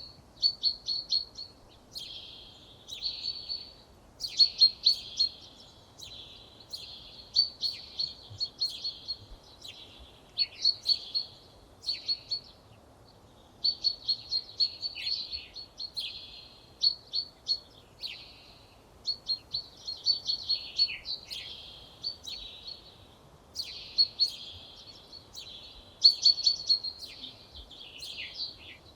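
Songbird singing short, rapid trilled phrases, each about a second long, repeated with brief pauses.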